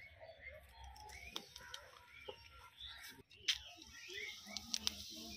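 Chickens clucking faintly, with a few sharp clicks and taps.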